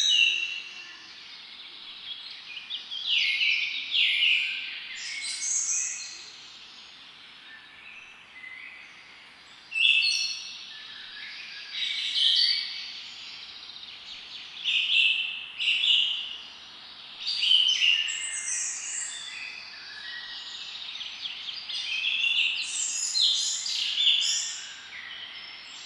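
Songbirds singing in the open: short bright phrases and quick trills, one after another every second or two, over a faint steady background hiss.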